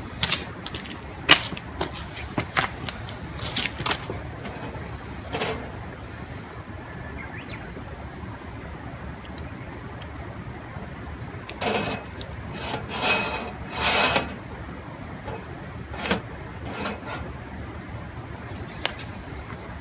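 Scattered clinks, knocks and scrapes of camp cookware being handled over a campfire, with a longer spell of clattering a little past the middle.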